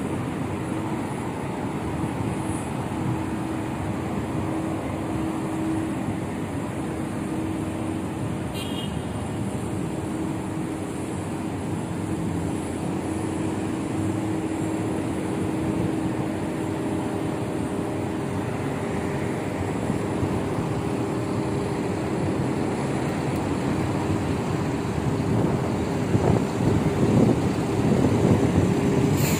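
Road traffic on a busy city street: buses and cars running past, with a steady engine hum. It grows louder near the end as a bus runs close by.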